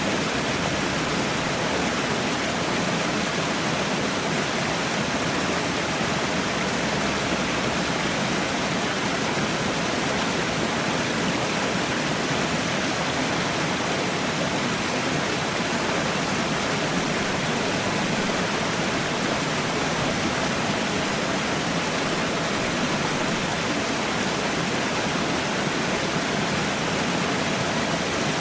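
Falling water pouring steadily, a constant even rush with no changes.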